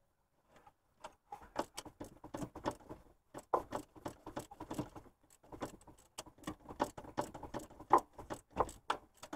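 A 3/8-inch ratchet clicking in irregular bursts of sharp metallic clicks as the belt tensioner bolt is worked loose, starting about a second in.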